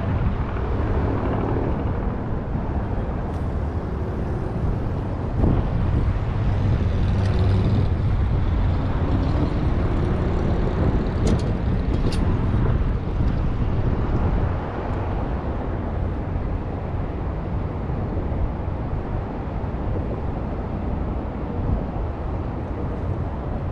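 Strong wind buffeting the microphone: a steady low rumble throughout, with a couple of sharp clicks about halfway through.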